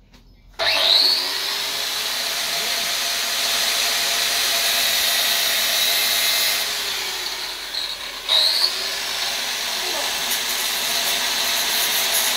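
Battery-powered electric hydraulic pump motor of an engine hoist starting up with a rising whine and running steadily with a loud hiss. It cuts out briefly about eight seconds in and starts again.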